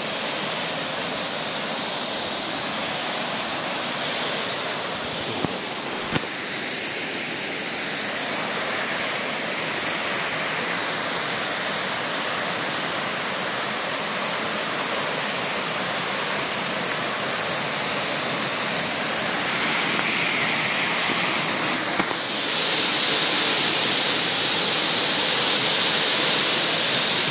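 Waterfall pouring into its plunge pool: a steady rush of falling water, growing a little louder about three quarters of the way through.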